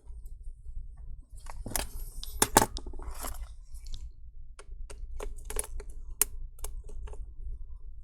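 Small plastic laptop parts being handled and fitted: a few scraping rustles, then a run of about a dozen small, sharp, irregular clicks, over a low steady hum.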